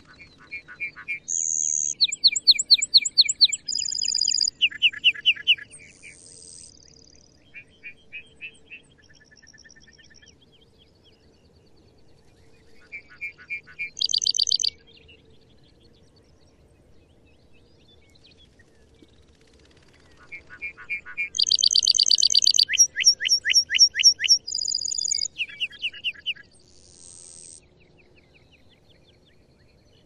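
Male lark bunting singing: two long songs of rapid runs of repeated notes and buzzy trills jumping between high and lower pitches, one about a second in and one about twenty seconds in, with a few short phrases between them.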